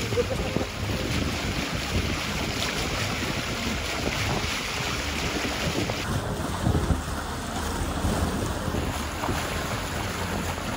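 Wind buffeting the microphone over water washing past the hull of a sailboat under way on open sea. It is a steady rushing noise whose upper hiss thins for a few seconds about six seconds in.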